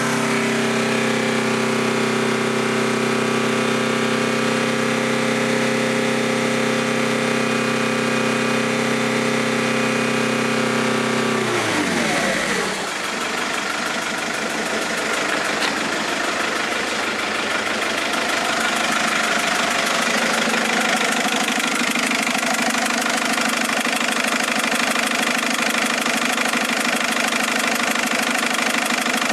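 Mercedes-Benz A170 engine running at raised, steady revs, then dropping back sharply about twelve seconds in and idling with a rapid, rough knocking. The knock is still there after three injectors have been changed.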